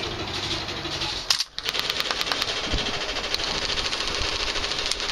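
Airsoft guns firing full-auto bursts: a rapid rattle of clicks at about a dozen a second, over a steady hum. A sharp knock comes a little over a second in, followed by a brief drop in sound.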